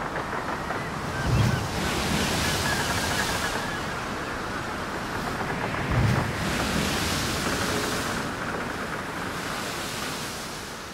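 Sea waves breaking on a shore: two waves come in, about a second and a half in and again about six seconds in, each a low thump followed by a hiss of surf that washes out over a couple of seconds.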